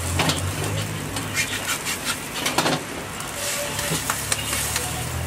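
A filled galette sizzling on a hot crepe griddle while a wooden spatula scrapes and taps against the plate to fold it, with scattered short clicks. A low steady hum runs underneath.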